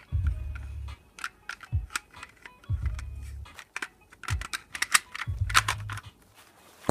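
Small sharp plastic clicks and rattles of an airsoft spring pistol's parts being handled and fitted back together, scattered unevenly, over background music with a deep low bass.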